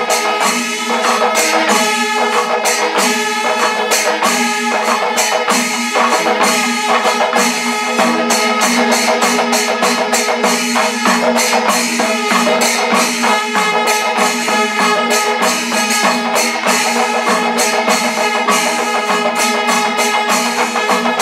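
Kerala panchavadyam ensemble playing: dense, fast strokes of timila and maddalam drums over the steady ringing of ilathalam cymbals.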